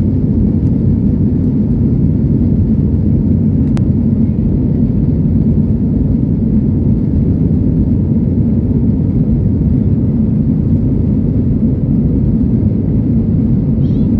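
Steady low rumble of airplane cabin noise, with one faint click about four seconds in.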